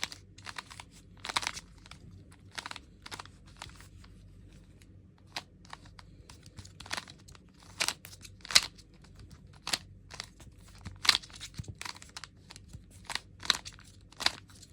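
A Rubik's Cube's plastic layers being turned by hand: irregular clicks and clacks, roughly one turn a second with a few quicker pairs.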